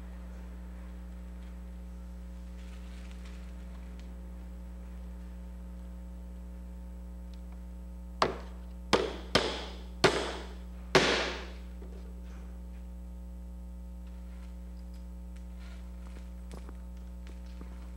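Five sharp knocks on wood in about three seconds, each ringing briefly, as from a hammer striking a wooden picture frame being fitted to a painting. A steady electrical mains hum runs underneath throughout.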